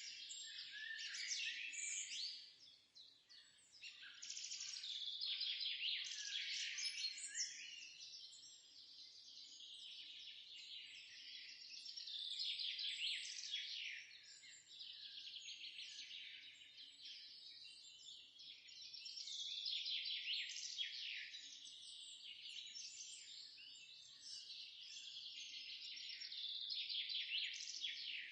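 Several small songbirds chirping and singing at once in a dense, continuous chorus of quick, high chirps and trills that swells and fades every few seconds.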